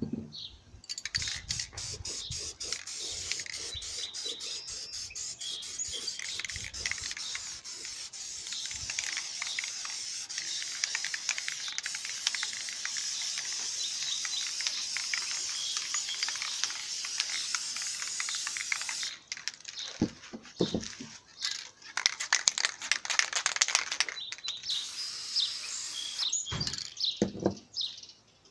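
Aerosol spray paint can hissing in one long continuous spray, then a few shorter bursts near the end.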